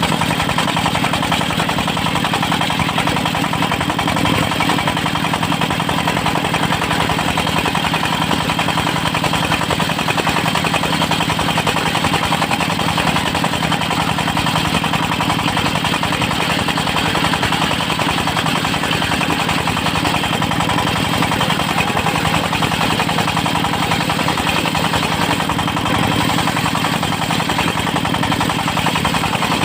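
Engine of a portable circular-saw sawmill running steadily and loudly, with an even, unchanging drone.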